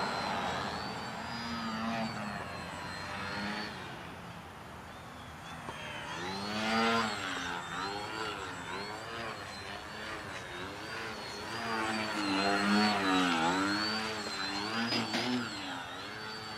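Electric motor and propeller of a Crack Yak foam 3D RC plane whining in a hover, the pitch swelling and dipping with the throttle, loudest in two surges about seven and thirteen seconds in.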